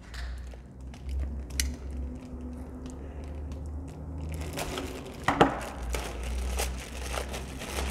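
Thin plastic bag crinkling as it is handled and cut open with a multi-tool blade, with a sharp click about five seconds in.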